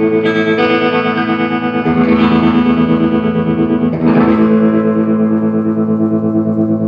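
Electric guitar chords played through a Vox AC30 CC2 valve amplifier, slightly overdriven, with an effect that makes them waver. A new chord is struck about every two seconds and each one rings on. It is a playing test of the amp after repair: new filter caps, GZ34 rectifier and top boost channel caps.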